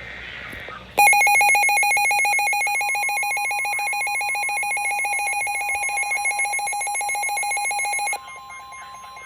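Weather alert receiver alarm beeping rapidly in a harsh buzzer tone from about a second in, announcing a flood warning on NOAA Weather Radio. From about three seconds in, the steady warning alarm tone of the broadcast sounds underneath. The beeping drops sharply in level near the end, and the steady tone carries on.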